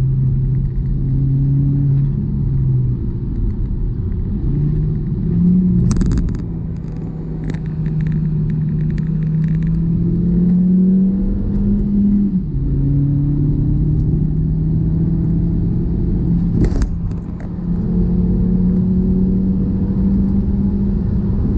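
2002 Volkswagen Passat 1.8T's engine running while driving, a steady drone whose pitch climbs slowly and drops suddenly about halfway through, as at a gear change. A few short sharp clicks come over it twice.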